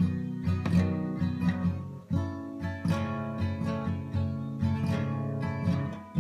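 Acoustic guitar strumming chords, with a chord change about two seconds in.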